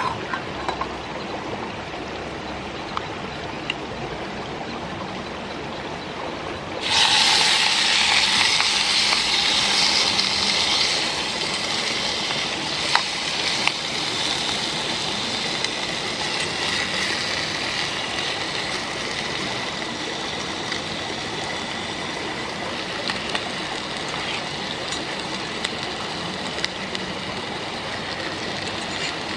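Sliced meat hitting hot oil in a camping pot on a gas canister stove: a sudden loud sizzle about seven seconds in that slowly settles into a steady sizzle as the meat is stirred with chopsticks. A steady hiss runs underneath before the meat goes in, with a few small clicks of chopsticks on the pot.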